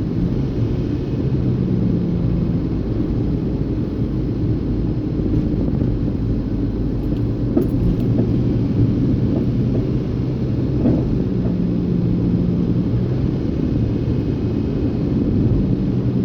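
Suzuki APV van being driven: a steady low rumble of engine and road noise, with a few faint knocks about eight and eleven seconds in.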